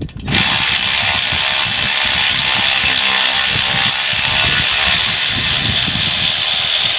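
Power wrench running steadily for about seven seconds, starting and stopping abruptly, as a fastener is taken off the truck's rear brake assembly.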